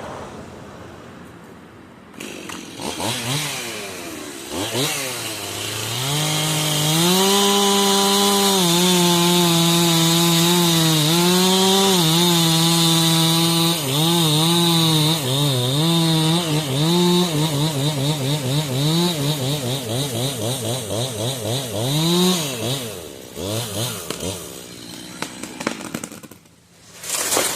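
Two-stroke chainsaw revving up a few times, then held near full throttle for about fifteen seconds with small dips in pitch as it takes load in a cut, before dropping back and stopping near the end.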